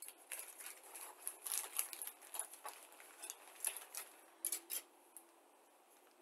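Thin clear plastic parts bag crinkling and rustling as hands rummage in it, an uneven run of quick crackles that stops about five seconds in.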